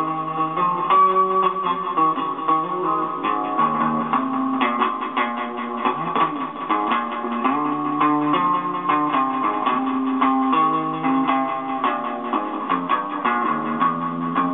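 Electric guitar being played, with quickly picked notes and held notes over a low line that steps from note to note.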